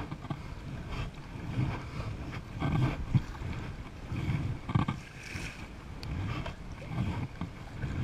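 Double-bladed sea kayak paddle dipping into the water on alternating sides, each stroke a splash and swish that comes about every second, over a steady buffeting of wind on the microphone.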